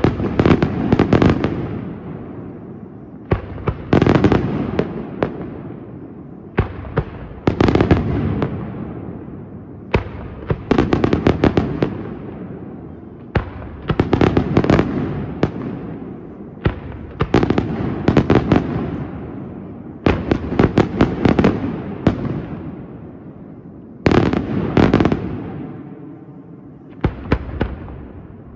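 Aerial firework shells bursting in a display. They come in volleys about every three seconds, each a cluster of sharp bangs and crackles followed by an echo that dies away.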